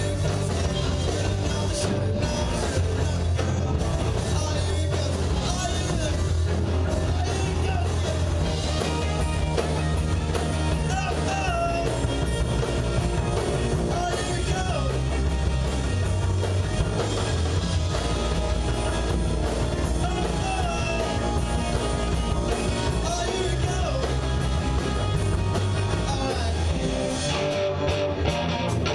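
Live rock band playing: electric guitars, bass guitar and a drum kit, loud and without a break, with a melody line that wavers and bends in pitch over the steady low end.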